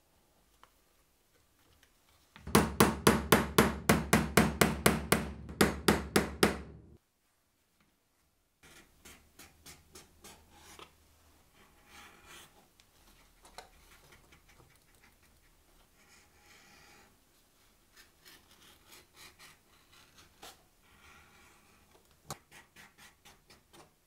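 A quick run of loud, evenly spaced knocks, about four a second, for around four seconds. After a pause, a utility knife blade slicing and scraping quietly through leather on a cutting mat, with a few light ticks.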